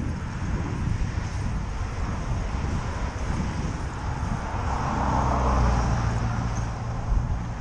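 Wind rumbling on the microphone of a moving bicycle, with a car passing about halfway through, its low hum and tyre noise swelling and then fading.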